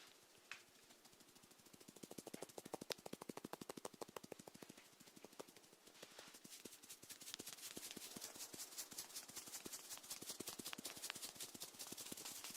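Snails feeding, close-miked: a faint, rapid crackle of many tiny clicks. It is coarser from about two to five seconds in, then turns denser and finer, like a soft hiss of ticks.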